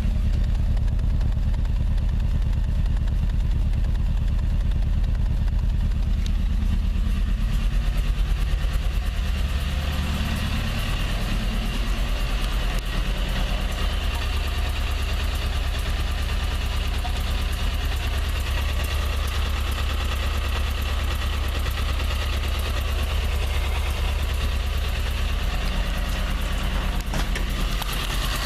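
Toyota 4A-GE 20-valve Blacktop 1.6-litre inline-four idling on a cold start, with a ticking that the owner traces to the exhaust header.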